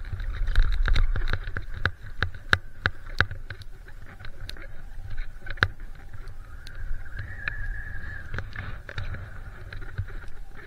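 Wind rumbling on a helmet camera's microphone while skis move over snow, with many irregular clicks and scrapes that thin out after about six seconds.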